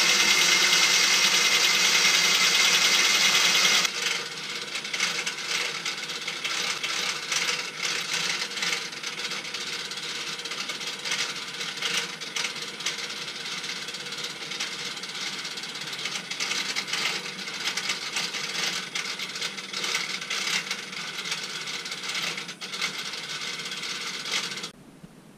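A 50-year-old Meccano E15R electric motor driving the crane's gearing. For about four seconds it runs loud and steady with a fixed whine, then turns quieter and rougher with a dense rattle as it raises the boom, struggling to cope on 12 V. It stops abruptly near the end.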